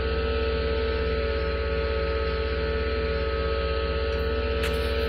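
Homemade quail incubator running with a steady electric hum and low drone, unchanging throughout.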